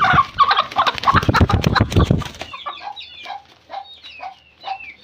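Broody desi hen being lifted: a loud, scuffling flurry with squawks for about two and a half seconds, then a quick run of short clucks, about three a second.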